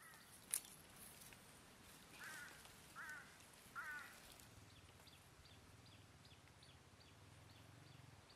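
Quiet outdoor ambience with a sharp click about half a second in, then an animal calling three times about a second apart. After that comes a faint, even series of short high chirps, about two or three a second.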